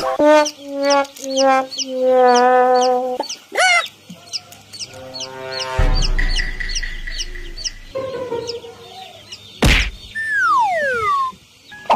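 A string of cartoon sound effects over background music: short repeated animal calls at the start, a held pitched tone, a low rumble, then a sharp bang about ten seconds in followed by falling whistles.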